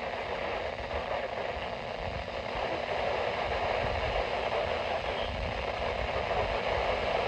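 Steady hiss of radio static from a weather radio receiver, with no voice on the channel.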